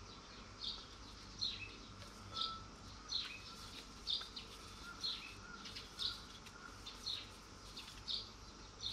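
A bird calling over and over: a short high chirp that drops in pitch, repeated about once a second.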